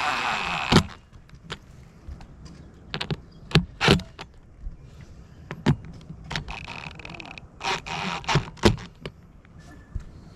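A loud steady machine sound with a wavering pitch cuts off suddenly under a second in. Irregular knocks, taps and clatters of hand work on the roof follow.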